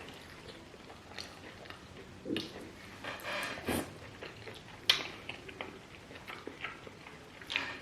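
Close-miked eating of banku with okra soup: wet chewing and mouth smacks with scattered clicks, the sharpest click about five seconds in.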